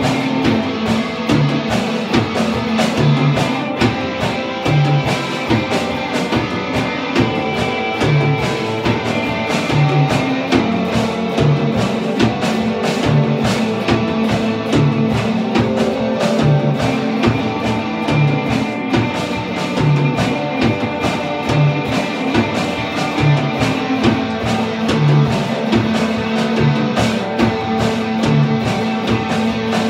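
Live instrumental punk and industrial metal: two electric guitars played over a Gretsch drum kit, a continuous loud band performance with a steady beat and no vocals.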